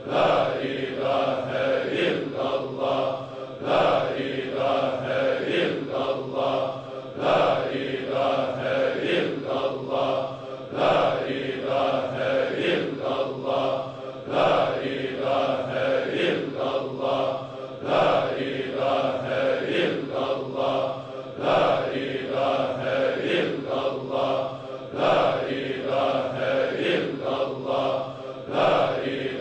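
Chanting voice with steady held tones, a phrase swelling and repeating about every three and a half seconds.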